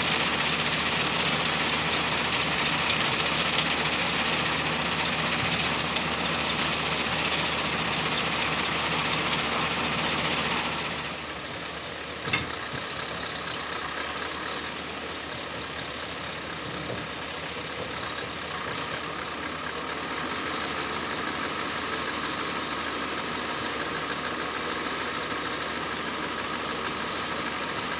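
Heavy diesel machinery running close by with a loud hiss. About eleven seconds in the sound drops suddenly to a Scania hooklift truck's diesel engine idling steadily, with one sharp click a little after the drop.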